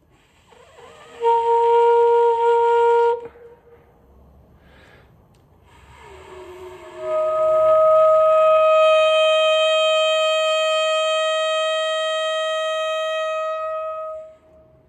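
Saxophone playing two long notes in the upper range, each started from the breath without tonguing, so a rush of air swells into the tone. The first is held about two seconds; the second, a little higher, is held about seven seconds and fades out near the end.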